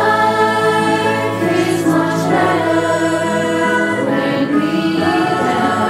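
Background music: a youth choir singing, holding long notes.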